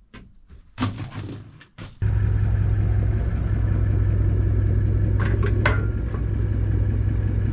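A few light knocks and rattles, then about two seconds in a car engine comes in abruptly and runs steadily with a low hum. A brief click and a short squeak a few seconds later.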